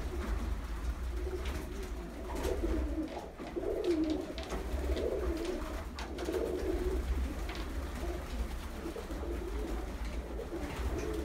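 Pigeons cooing in a loft, several overlapping rolling coos, over a steady low hum with a few sharp clicks. The birds are Polish Murzyn pigeons.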